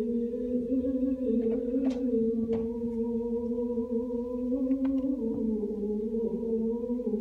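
Chant-like singing: a long held, unbroken note that steps to a new pitch a couple of times, with a few faint clicks.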